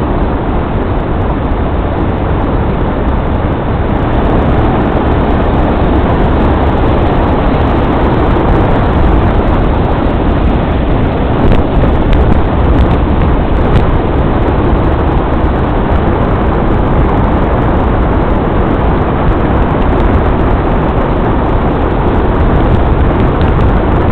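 Steady road and engine noise of a vehicle on the move, with a few faint ticks about halfway through.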